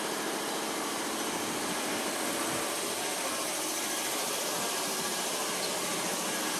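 Steady mechanical drone with a hiss over it.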